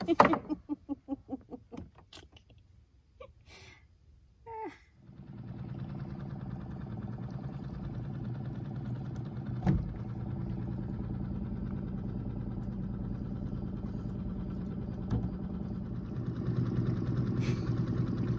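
Small tiller-steered outboard motor on a Gheenoe boat starting up about five seconds in, then running steadily, a little louder near the end.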